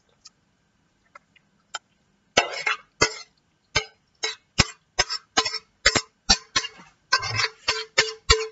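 Enamel bowl being knocked and scraped while marinated chicken is scraped out into a larger enamel bowl: a quick series of sharp clinks, about two or three a second from about two seconds in, many leaving a short ringing tone, with a few scraping rustles among them.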